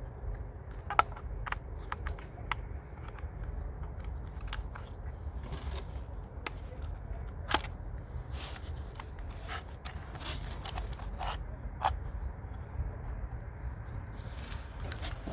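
Scattered light clicks and short scrapes of hands working the cable on a Peugeot 508's electric door lock mechanism, over a steady low hum.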